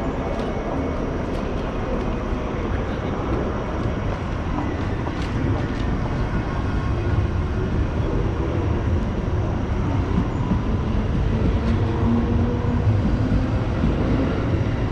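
Electric commuter train running through the station platform: a steady rumble of wheels and traction motors, with faint motor tones drifting in pitch, growing a little louder towards the end.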